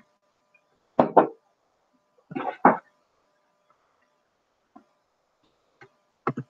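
Knocks and thumps of a webcam-equipped computer being handled and set in place: two loud knocks about a second in, a louder cluster of thumps near three seconds in, then a few fainter taps near the end.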